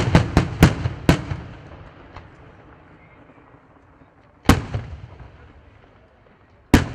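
Aerial firework shells bursting with loud bangs, each fading in echo. A rapid run of about five reports comes in the first second, then single bangs at about four and a half seconds and near the end.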